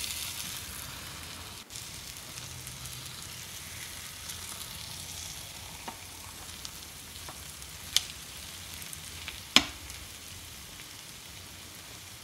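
Eggs and onion masala sizzling in a pan as the eggs are turned over with a silicone spatula, a steady soft frying hiss that slowly fades. Two sharp clicks of the spatula against the pan come late on, about a second and a half apart, the second louder.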